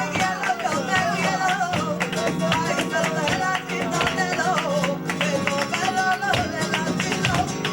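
Live flamenco bulerías: a singer's wavering, ornamented voice over acoustic guitar, with frequent sharp percussive hits throughout.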